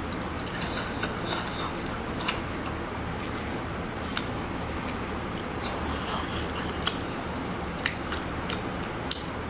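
Close-miked wet mouth sounds of someone chewing and sucking on a whole cooked octopus: soft smacking and slurping hiss with a handful of sharp sticky clicks, over a steady low hum.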